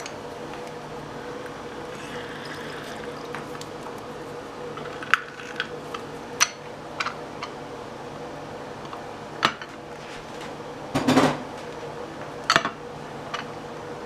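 Plastic hand-held lime squeezer clicking and clacking as it is opened, loaded with lime halves and squeezed over a bowl: a handful of sharp knocks, the loudest cluster about eleven seconds in, over a faint steady hum.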